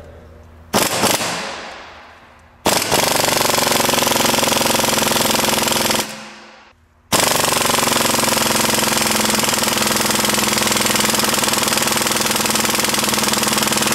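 A 3/8-inch impact wrench hammering on an exhaust manifold bolt through a Tite-Reach extension wrench. It gives a brief blip, then two long runs of rapid hammering with a short pause between, and the bolt does not come loose. The extension turns the bolt the opposite way, so the impact is actually tightening it.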